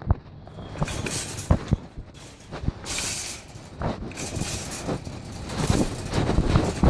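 Phone microphone rubbing against fabric inside a pocket while walking: scratchy rustling and scraping with irregular dull thumps from the steps.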